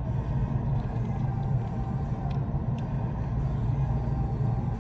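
Steady low rumble of room background noise, with a few faint clicks over it.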